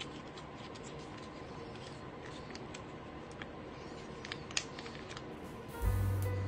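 Light crinkling, scraping and small clicks from a wet cat-food pouch being handled and squeezed out onto a metal tray. Music with a low bass comes in near the end.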